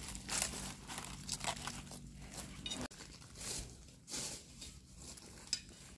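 Dry leaf litter crackling and rustling in a series of short, irregular scrapes as mushrooms are picked from the forest floor, with a knife blade scraping dirt off a mushroom stem.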